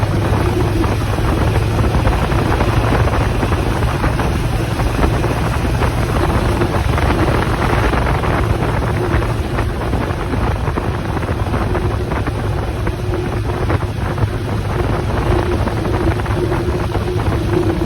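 Motorcycle running steadily at road speed, its engine hum buried under heavy wind rushing over the microphone.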